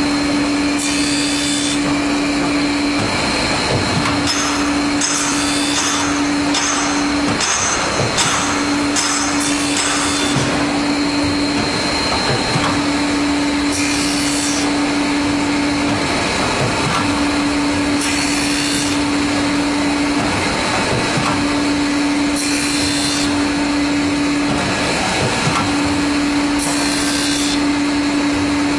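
CNC circular saw blade sharpening machine running: a steady motor whir with a hum that cuts in and out every few seconds. Short hissing bursts come as the grinding wheel works the saw teeth, several in quick succession about five seconds in, then one every four seconds or so.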